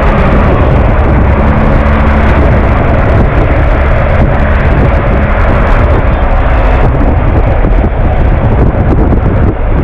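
BMW R 1250 GS Adventure's boxer-twin engine running at road speed, fitted with a Rapid Bike fuel module, mixed with loud wind rush over the microphone. A steady hum in it fades after about two seconds.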